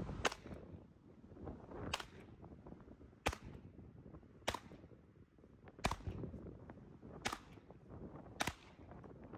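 Ruger Mark IV Lite .22 caliber pistol fired seven times at a slow, steady pace, one shot roughly every one and a quarter seconds.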